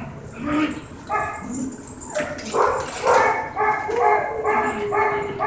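Dog barking in play while tussling over a rope toy: a few scattered barks, then a quick, even run of barks, about two to three a second, from about halfway on.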